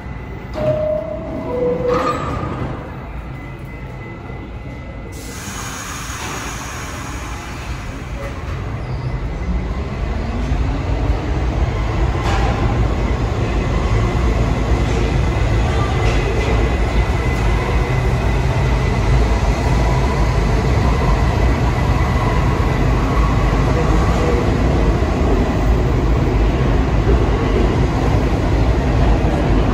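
New York City Subway train: a two-note chime, higher then lower, about a second in, then the train pulls away. Its traction motors whine rising in pitch as it accelerates, and wheel and track noise builds to a steady loud rumble.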